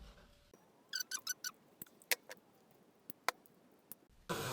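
Light metallic clinks: a quick run of four or five ringing ticks about a second in, then a few scattered sharp ticks, from small metal parts being handled.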